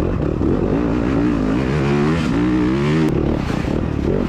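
2021 Yamaha YZ250FX's 250 cc four-stroke single-cylinder engine running under load on a dirt-bike trail ride, its pitch rising and falling repeatedly as the throttle is worked. A brief click sounds about three seconds in.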